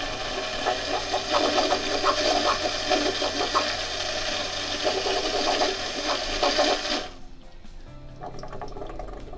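Electric keel sump bilge pump running steadily as it pumps out fresh water poured into the sump for a test. It cuts off suddenly about seven seconds in, once the delay in its automatic sensor switch runs out, showing the automatic switch works.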